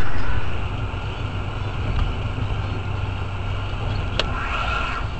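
Car driving, with steady engine and road noise and a single sharp click about four seconds in.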